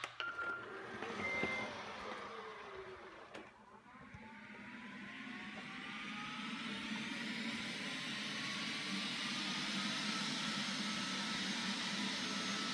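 Neato XV-21 robot vacuum starting a cleaning run: two short beeps as its start button is pressed, a brief falling whir and a click, then its vacuum motor spins up into a steady whine that rises in pitch and grows louder over several seconds.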